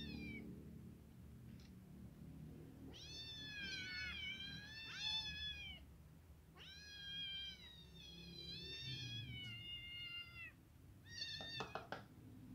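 Kittens meowing for food: high-pitched, drawn-out cries in several bouts, some calls overlapping, with a short call at the start and another near the end. A few sharp clicks near the end: a spoon knocking on the plastic feeding bowl.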